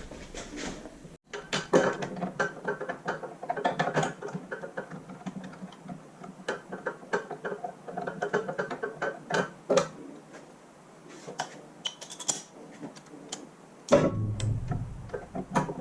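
Socket ratchet on a double extension clicking in quick runs as bolts on a tractor engine's rear main crankshaft seal housing are drawn down; the clicks thin out past the middle. A louder low hum comes in near the end.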